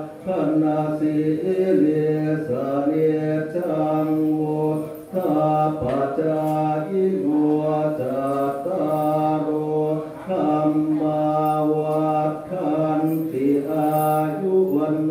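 Buddhist monks chanting in unison, a male group recitation held mostly on one low, steady note. The long phrases break for breath about every five seconds.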